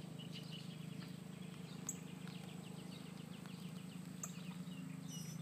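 Birds chirping in quick series of short, repeated high notes, over a steady low hum.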